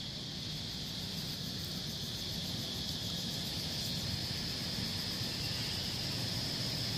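Steady, high-pitched drone of insects calling in the trees, over a low rumble.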